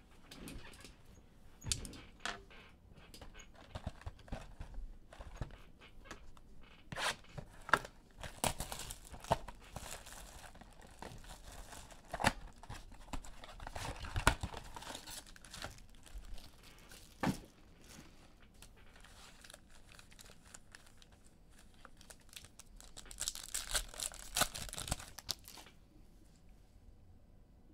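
A trading-card box being opened by hand, with cardboard and plastic pack wrappers tearing and crinkling and irregular clicks and taps of handling. A denser spell of ripping and crinkling comes near the end.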